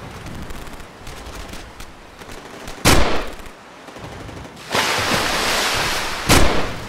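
Battle sound effects of gunfire: a low rattle of rapid machine-gun fire, then a loud blast about three seconds in. A steady rushing noise like surf starts near the end, and a second loud blast follows just before the end.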